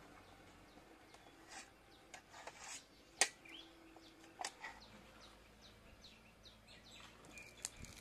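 A few sharp clicks and scrapes of metal forks on an enamel plate as boiled chicken is pulled apart, the loudest about three seconds in, over faint bird chirps.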